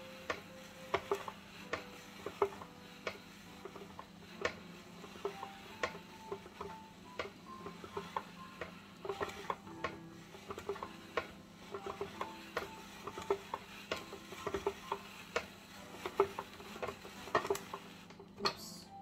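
Hand-crank vegetable spiralizer cutting a carrot into strands: irregular clicking and knocking from the turning crank and the blade biting the carrot, a few clicks a second. Single piano notes sound faintly in the background.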